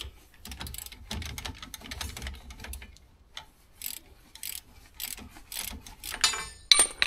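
Socket ratchet clicking in short runs as a just-loosened nut on a Trabant 601's front wheel hub is wound off. A quick run of clicks comes near the end, then a sharp metallic clank.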